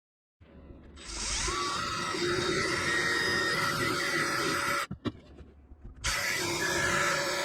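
An electric drill running steadily. It stops about five seconds in and starts again a second later.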